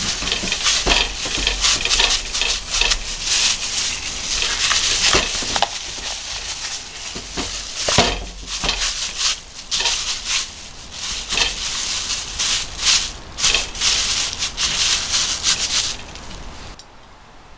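Thin plastic crinkling and rustling as a plastic-covered hand presses and gathers soft potato gnocchi dough in a bowl and wraps it in plastic film, with many small crackles. The rustling stops near the end.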